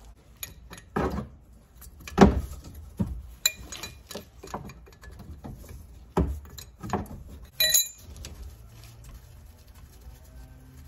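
Scattered knocks, clicks and clinks of metal parts and a wrench being handled while a loosened hydraulic suspension accumulator and its hard line are worked free. The loudest knock comes about two seconds in, and a short ringing metallic clink comes about three quarters of the way through.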